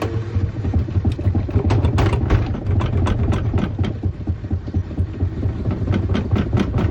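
LG washing machine spinning in test mode with an unbalanced load: a steady low motor hum under knocking and rattling from the shaking cabinet. The knocks come irregularly at first and settle into a fast regular beat of about four or five a second near the end.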